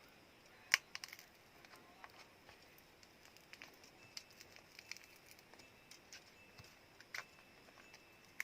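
Small sharp clicks and taps of a Samsung Galaxy A02s's parts being worked apart with tools, one louder click about a second in and lighter ones scattered after.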